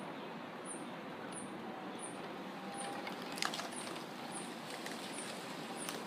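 Wind moving through the leaves of a mango tree, a steady rustling hiss. Over it, a high, thin chirp repeats evenly about every two-thirds of a second, and there is a sharp click about three and a half seconds in.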